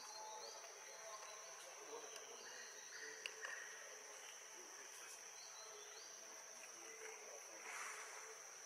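Faint forest ambience: insects keep up a steady high-pitched drone throughout, with a few short chirps scattered over it.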